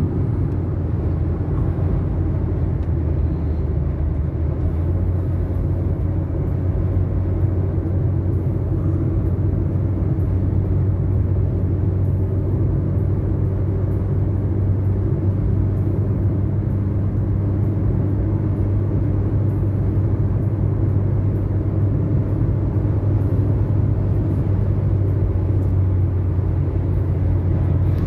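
Steady low drone of a vehicle on the move, heard from inside the cabin: engine and road noise with a constant hum, unchanging throughout.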